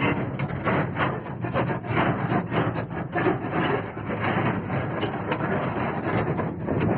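Hyundai 210 crawler excavator's diesel engine running with a steady rumble. Over it come irregular sharp knocks and scraping, several a second.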